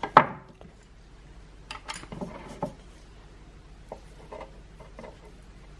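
Kitchen knife cutting through small soft cheeses and knocking on the cutting board in separate short knocks: the loudest just after the start, a few around two seconds in, softer taps near the end.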